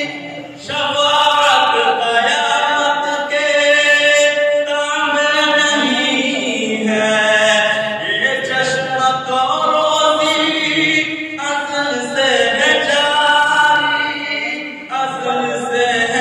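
A young man sings a naat, an Islamic devotional poem in praise of the Prophet, solo and unaccompanied through a microphone. His voice runs in long, held, ornamented melodic phrases, with brief breaths between them.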